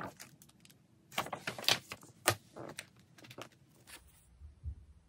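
Paper and card handling: irregular rustles and light clicks as album pages, inserts and photo cards are shuffled and sorted, with a cluster of them between about 1 and 4 seconds in.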